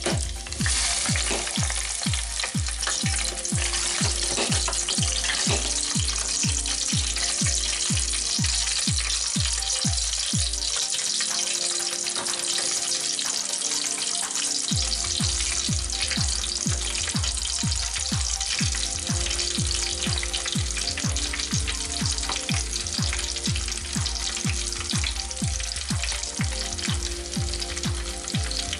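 French fries frying in hot oil in an electric deep fryer: a dense, steady sizzling hiss. Under it runs background music with a steady beat of about two thumps a second, whose bass drops out for a few seconds midway.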